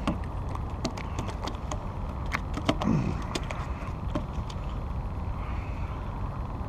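Scattered sharp clicks and knocks as a just-caught speckled trout is handled and unhooked on a wooden pier's plank deck, thinning out after about four and a half seconds, over a steady low rumble.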